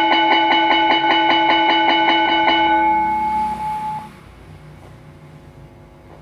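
Electric school bell ringing fast, about six clapper strikes a second, set off by an automatic bell timer. The ringing stops about two and a half seconds in and dies away over the next second or so, leaving a faint hum.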